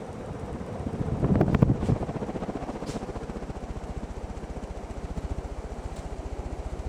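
Casablanca Delta II ceiling fan running on its top speed, its air blowing across the microphone as a low rumble with a rapid, even pulsing. A louder gust of wind noise comes about a second and a half in.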